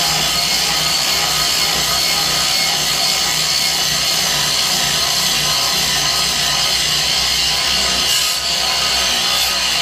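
Angle grinder with a grinding wheel running steadily against a rusted 1/4-inch steel plate, grinding off heavy rust, with a brief dip about eight seconds in.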